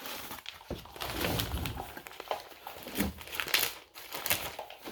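Plastic bag crinkling and rustling as it is handled, with a few small knocks from the parts being moved.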